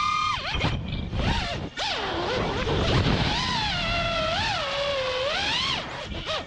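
FPV quadcopter's brushless motors (Lumenier 2206 2450kv on 5-inch three-blade props) whining, the pitch sliding up and down with the throttle. The whine drops out sharply a few times, about half a second in, just before two seconds and near the end, as the throttle is chopped.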